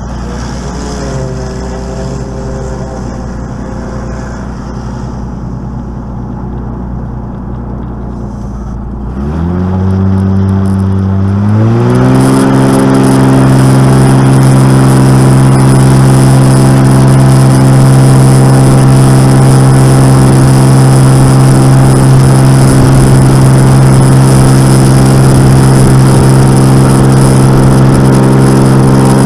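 Single-engine light aircraft's piston engine and propeller heard from inside the cockpit. It idles at first, then the throttle is advanced in two steps about nine and twelve seconds in, and the engine rises in pitch to full takeoff power and holds there steadily for the takeoff roll.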